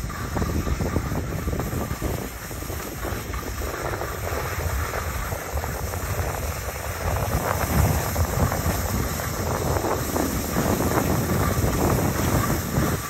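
Skis sliding and scraping over packed, grooved snow at speed, a continuous rough hiss, with wind buffeting the microphone.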